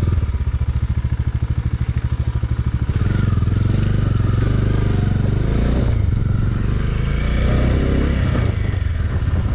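Motorcycle engine running at low speed on a rough off-road descent, with an even, steady beat. It gets a little louder about three seconds in.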